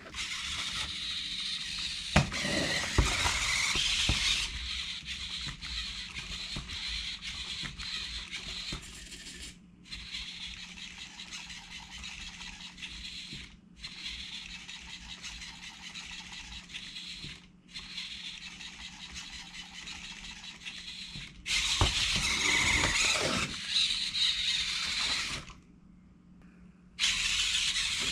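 Small electric motors whirring with a squealing, scraping edge. They run in stretches of several seconds with brief pauses between them, and are loudest at the start and again near the end.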